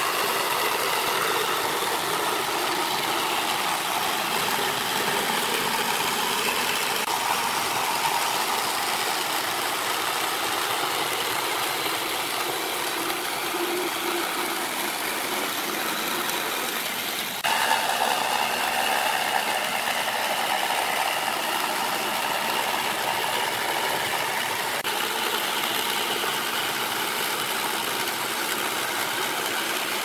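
Dongcheng corded jigsaw running steadily, its reciprocating blade sawing through a wooden plank along a curve to cut out a round hole. The pitch and loudness of the saw shift suddenly a little over halfway through.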